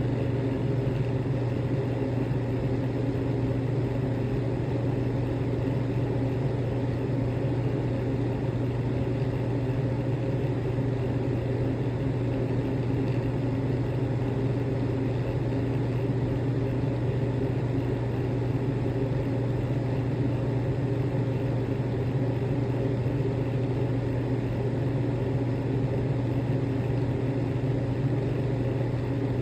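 A steady low rumbling drone that does not change in pitch or loudness.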